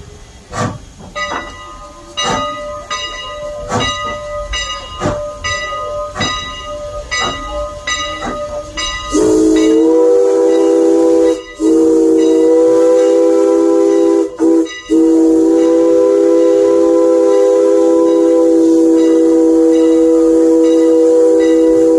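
Steam locomotive No. 89 working, with even strokes about one and a half a second over a steady ringing, like its bell. About nine seconds in, its steam whistle opens in a loud multi-note chord and is held to the end, broken twice briefly.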